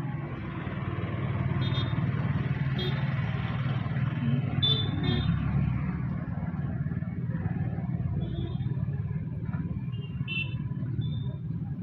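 Tractor diesel engine running steadily with a low hum, louder for a few seconds in the first half.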